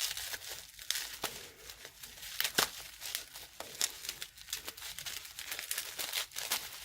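Wrapping on a small oil bottle being crinkled and torn open by hand, an irregular run of sharp crackles and rips.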